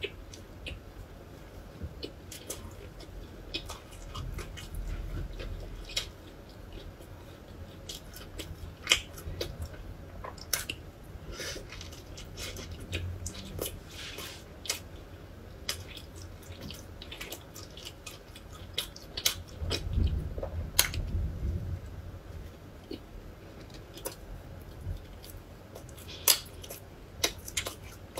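Close-miked chewing and biting of a soft hamburger, with many short wet mouth clicks and smacks at irregular intervals.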